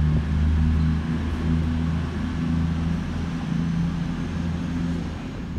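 Underfloor diesel engines of a CrossCountry Voyager diesel multiple unit running with a steady low drone, easing slightly toward the end.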